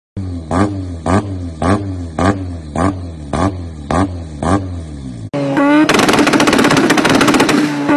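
Mazda RX-7 rotary engine revved in eight quick, evenly spaced blips, each rising and falling in pitch, over a low steady idle. After about five seconds another rotary car takes over, held at a steady pitch on a 2-step launch limiter, its exhaust popping in a rapid, continuous crackle and spitting flames.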